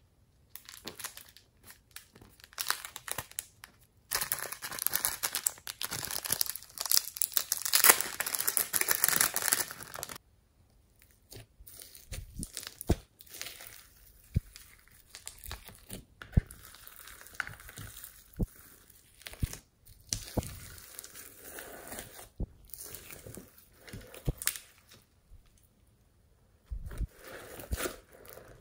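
Hands stretching and kneading sticky glossy slime topped with beads and glitter in a glass dish, giving a crackling, crinkling sound. About four seconds in, the crackling turns dense and loud for some six seconds, then thins to scattered sharp pops and clicks.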